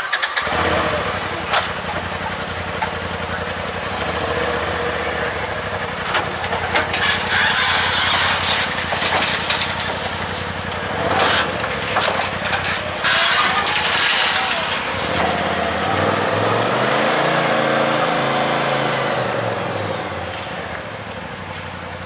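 Polaris RZR Turbo S side-by-side's turbocharged twin-cylinder engine starting and then running as the machine is backed down off a trailer and driven away, with a few sharp knocks along the way. Near the end the engine note rises and falls as it is revved.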